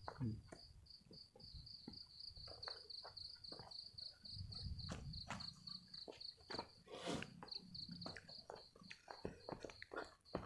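Faint chirping of a night insect: one high note pulsed evenly at about five times a second, running steadily, with scattered rustles and knocks over it.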